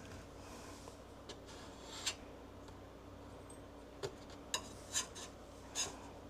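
Faint scraping and rubbing on the inside of a freeze dryer while dried food mess is cleaned out, with a few short clicks and taps, mostly in the second half. A steady low hum runs underneath.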